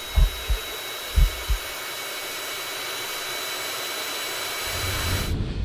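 Steady rushing jet-engine roar that builds a little and cuts off suddenly near the end. In the first second and a half it is joined by heavy low thumps in two pairs, like a heartbeat.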